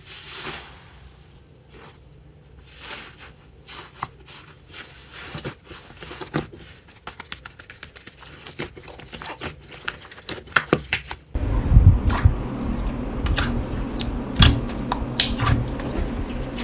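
Slime being handled: scattered crackles, clicks and sticky pops as it is squeezed and pulled. About eleven seconds in, it cuts abruptly to a louder clip with low, squelching thuds and sharper pops.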